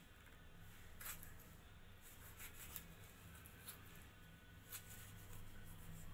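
Faint knife strokes cutting a tomato held in the hand, a handful of soft clicks and scrapes with pieces dropping onto a plate, over a low steady hum.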